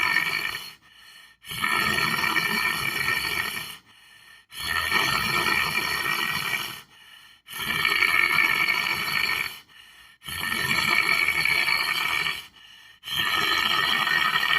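A person snoring in a steady rhythm, one long rasping snore about every three seconds with a short quiet pause between, five snores in all.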